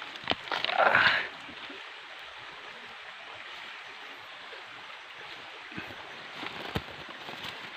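Hands rustling through leaf litter and snapping stems while picking wild mushrooms from the forest floor, loudest in a brief rustle about a second in, with a few light clicks later, over a steady hiss.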